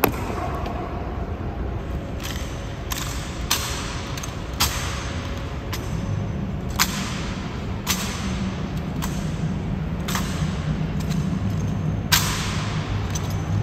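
Honour guard rifle and boot drill: about a dozen sharp strikes of rifles and boot heels, spaced one to two seconds apart, each ringing out with a long echo off the marble hall.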